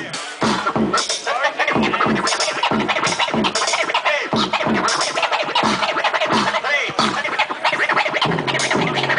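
A vinyl record scratched back and forth on a turntable over a hip hop beat, the scratches sweeping in pitch about twice a second.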